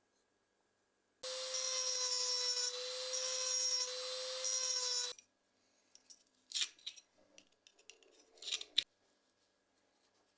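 A small power tool runs at a steady, high speed for about four seconds, starting and stopping abruptly, then a few short scrapes and clicks follow.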